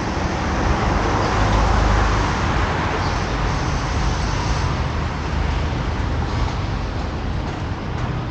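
Steady road traffic noise with a low rumble of wind on the microphone; it grows a little louder about two seconds in, as if a vehicle passes.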